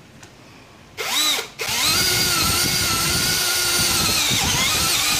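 Aneerpower BL-5120 cordless brushless hammer drill cutting into oiled steel plate with a step drill bit. It starts about a second in, stops briefly, then runs steadily with a high motor whine.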